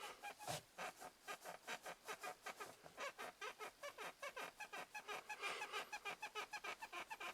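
Ford Focus 3 driver's seat squeaking over and over, about six short pitched squeaks a second: a creaking fault in the seat of a nearly new car.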